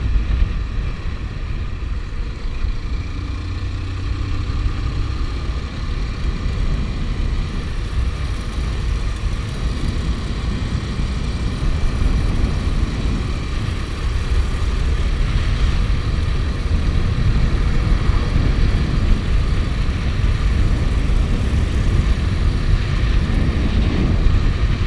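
Motorcycle riding along a road at steady speed: the engine runs under the heavy, steady rumble of wind buffeting the bike-mounted microphone.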